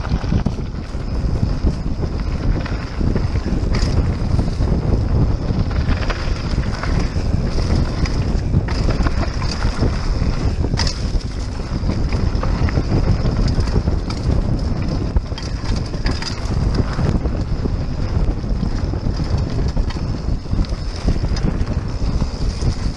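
Wind buffeting the microphone of a mountain bike's on-board camera during a fast downhill run on a dirt trail, with the rumble and rattle of the bike over the rough ground and scattered clicks and knocks. A steady high-pitched buzz runs underneath.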